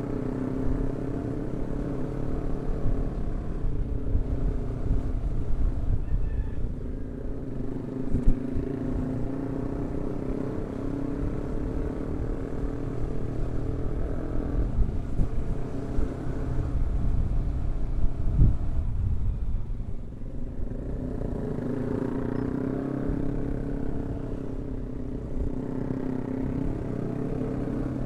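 Yamaha R15 V3's single-cylinder engine running under way, its pitch drifting up and down with the throttle, over a steady low rumble of wind and road.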